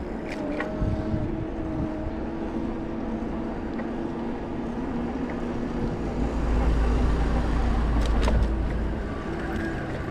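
Motor vehicle traffic with a steady engine hum close by. A louder low rumble begins about six seconds in and eases off about three seconds later.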